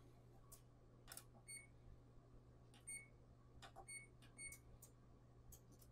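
Four short, faint beeps from a wall oven's electronic control panel as its buttons are pressed, with a few light clicks over a faint steady low hum.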